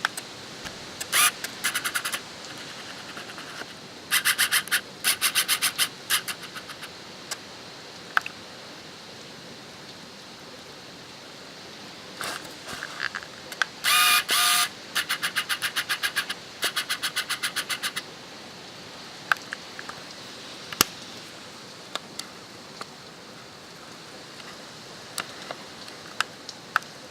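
Bird calls in bursts of rapid, high chattering notes, several times over, with a held call near the middle, over a steady hiss of wind.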